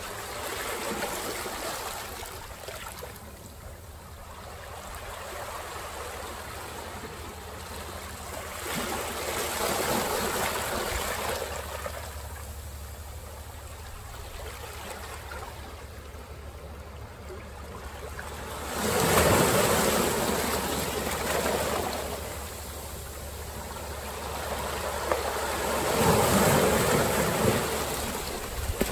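Ocean surf breaking and washing ashore in four swells, the loudest two in the second half. A low, steady wind rumble on the microphone sits underneath.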